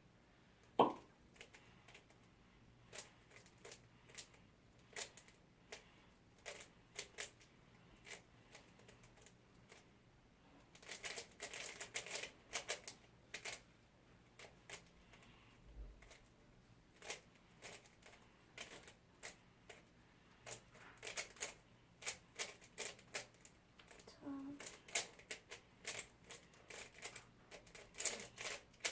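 Plastic 3x3 Rubik's cube being turned fast in a speedsolve: irregular runs of quick clicking layer turns, with short pauses between bursts.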